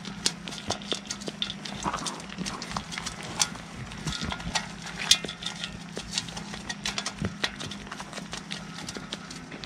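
Kiko-Boer cross goat kids eating grain from a shallow metal pan: a quick, irregular run of crisp crunches and clicks as they chew and their muzzles knock the feed against the pan, over a steady low hum.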